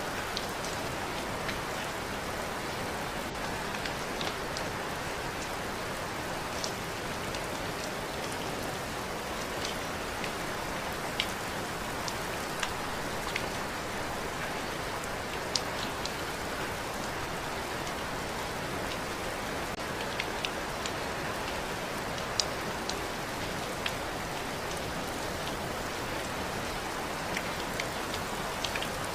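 Steady rain falling, an even hiss with scattered sharp drips and drop impacts standing out on top.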